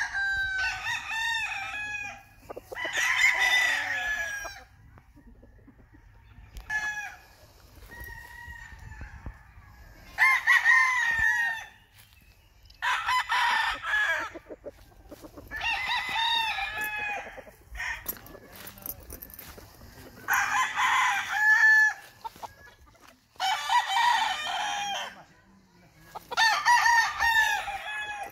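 A young rooster about five and a half months old crowing again and again, roughly eight crows of about one and a half to two seconds each with short pauses between them.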